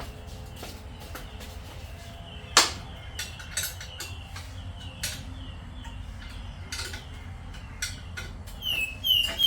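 Scattered clinks and knocks of metal, from tools and exhaust parts being handled, with one sharp knock a couple of seconds in. Near the end a bird starts chirping quickly and repeatedly.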